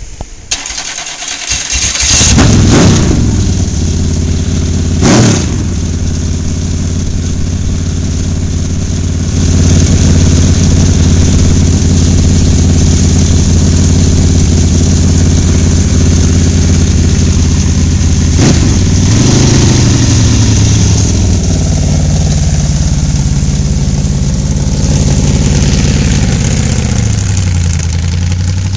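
Fuel-injected aluminum 350 Chevy V8 of a custom V8 motorcycle, open short stack exhausts, starting up and idling with sharp throttle blips a few seconds in, about five seconds in and again around eighteen seconds. In the later part the engine note repeatedly drops and climbs as the bike pulls away and runs through its gears.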